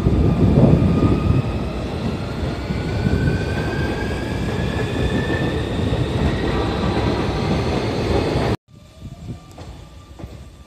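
Sotetsu electric commuter train pulling out of the station. Heavy wheel rumble runs under the traction motors' whine, which rises slowly in pitch as the train accelerates. About eight and a half seconds in the sound cuts off suddenly to a much quieter platform.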